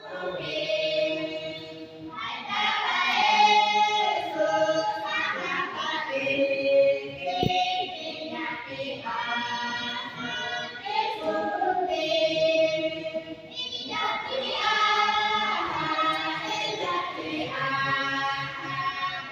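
A church congregation of men, women and children singing a hymn together.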